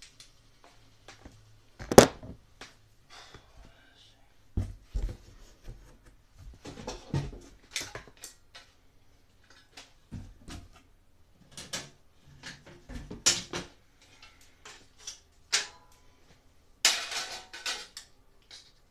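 Irregular clicks, knocks and rattles of the sheet-metal housing and plastic grille of a Broan 655 bathroom heater/exhaust fan being handled and worked on with a screwdriver. There is a sharp knock about two seconds in and a burst of rattling near the end.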